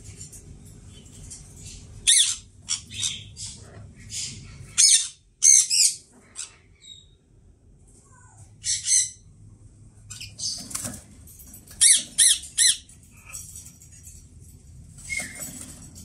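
Indian ringneck parakeets giving short, harsh, high-pitched squawks in quick runs of two or three, repeated again and again.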